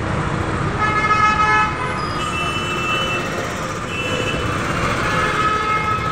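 Vehicle horns honking in city traffic, several short blasts at more than one pitch: one about a second in, another around two to three seconds, and more near the end. A steady rumble of engines and road noise runs under them.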